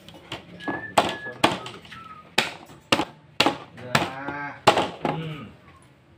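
Sharp knocks in an irregular run, roughly one every half second, from workshop work on an aluminium-trimmed hardcase panel. A short mooing call sounds about four seconds in.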